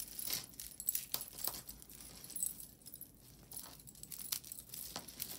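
Tangled metal chain and beaded necklaces clinking and jingling as they are pulled apart by hand: a light, irregular scatter of small metallic clicks.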